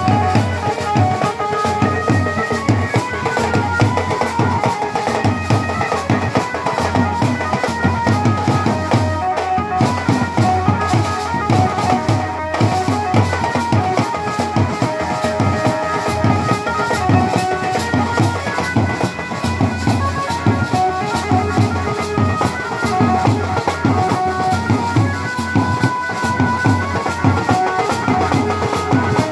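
Wedding band drums, a snare-type side drum and a bass drum, beating a steady dance rhythm, with a melody line over them.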